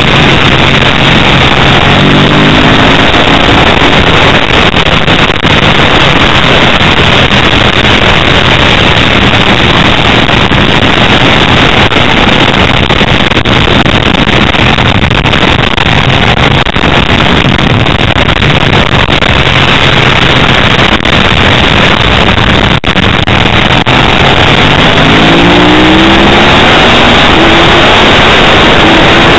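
Ducati 888 racing motorcycle's V-twin engine at race speed, heard from a camera mounted on the bike under loud, steady wind rush on the microphone. The engine note climbs in pitch as the bike accelerates about two seconds in and again over the last few seconds.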